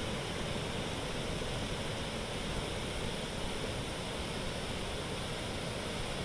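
Steady rush of fast-flowing floodwater in a swollen river.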